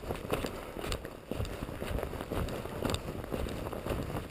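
Footsteps crunching in snow at a walking pace, about two steps a second, over a low rumble on the microphone.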